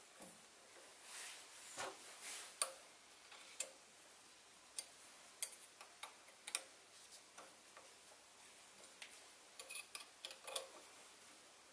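Faint, scattered light clicks and ticks of small steel parts being handled and fitted at the handwheel end of a Sieg SC3 mini lathe's compound slide, irregular and a few seconds apart.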